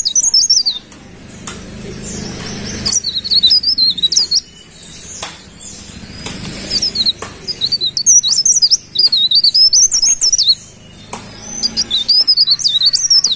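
Cikrak daun (a leaf warbler) singing: fast, high, twittering phrases, five of them, each a second or two long, with short pauses between.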